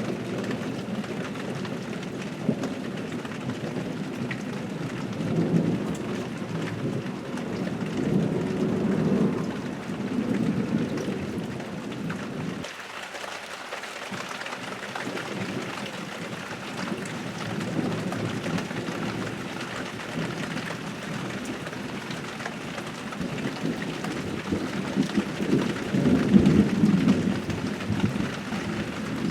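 Heavy rain falling steadily during a thunderstorm, with thunder rumbling in long low swells, about five to eleven seconds in and again near the end.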